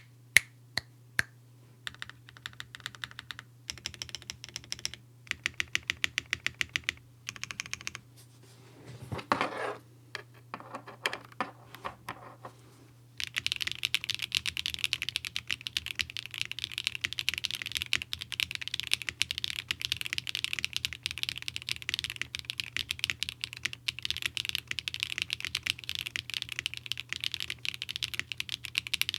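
Zoom75 mechanical keyboard with SWK Catmint switches, a polycarbonate plate and stock battery foam, being typed on: first separate key presses and short runs of rapid repeated presses, with a brief rubbing noise about nine seconds in, then from about thirteen seconds in, steady fast typing.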